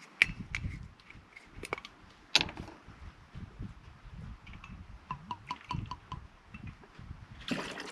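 Cocktail-making handling: a glass bottle's cap twisted off with a few sharp clicks, then triple sec poured from the bottle into a metal jigger, with a short quick run of small blips about five seconds in and light knocks of glass and metal.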